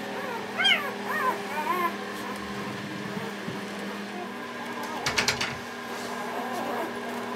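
Four-day-old Newfoundland puppies crying with short, high, mewing squeals that rise and fall. There are several in the first two seconds and fainter ones later. A brief cluster of clicks comes about five seconds in.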